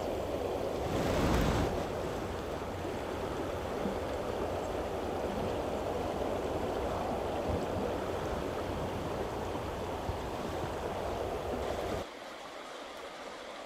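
Steady rushing noise of flowing river water, with a louder rush about a second in. Near the end it drops suddenly to a quieter hiss.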